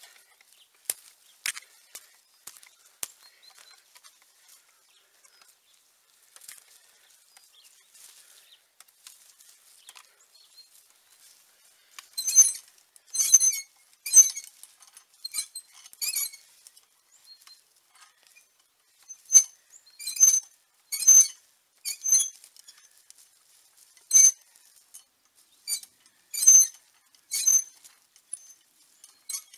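Metal tines of a long-handled Wolf-Garten cultivator pushed through loose garden soil. Faint scratching at first, then from about halfway in a run of louder strokes, roughly one a second, each with a metallic clink and ring.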